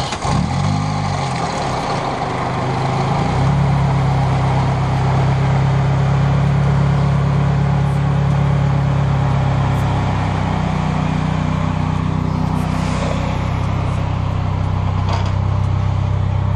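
Toyota Celica engine just after it catches, on fresh oil after an oil change: the revs flare and settle over the first three seconds, then it idles steadily. The idle note shifts slightly about ten seconds in.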